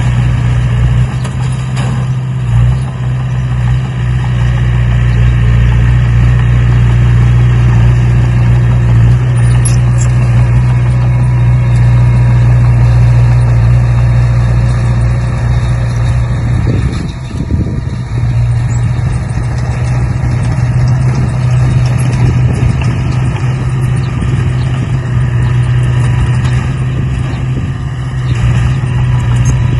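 A steady engine-like drone, running evenly, with a short dip about 17 seconds in.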